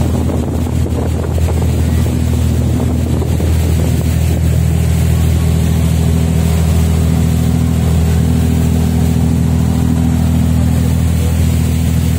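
Small wooden ferry boat's engine running steadily at cruising speed, a constant low drone, with the wake rushing and wind buffeting the microphone.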